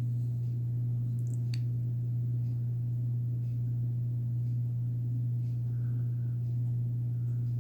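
Steady low hum with no change in level, with a couple of faint light clicks about a second and a half in.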